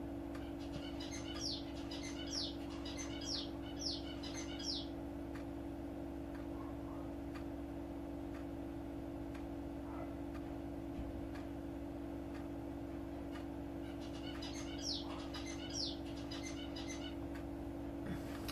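A bird chirping in two runs of short, quickly falling notes, the first from about a second in and the second near the end, over a steady low electrical hum.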